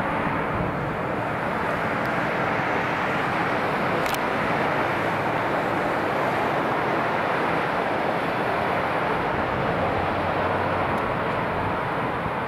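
Jet engines of an Airbus A321 on final approach: a steady rushing jet noise, a little louder in the middle as the aircraft draws nearer.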